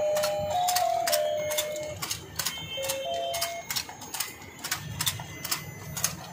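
Electronic fishing game toy playing a simple beeping tune while its turning mechanism clicks steadily. The tune is loudest in the first half, and the clicking keeps on after it fades.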